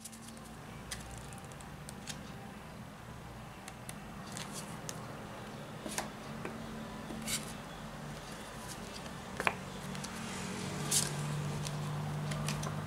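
Playing cards being handled and flicked: a few scattered sharp snaps and clicks of card against card over a steady low hum.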